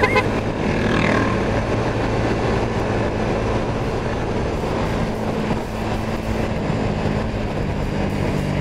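Yamaha Sniper 150 motorcycle's single-cylinder engine running at a steady pitch while riding, under a steady rush of noise.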